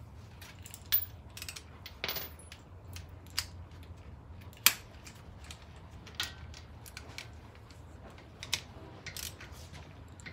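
Scattered metal clinks and knocks of hand tools and brake parts as a disc brake caliper is fitted over a new rotor and bolted up with a socket wrench; the sharpest knock comes about halfway through.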